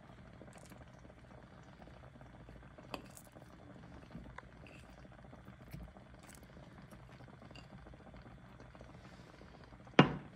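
Pot of chicken and potato stew simmering in water on the stove: steady bubbling with scattered small pops, then one sharp knock near the end.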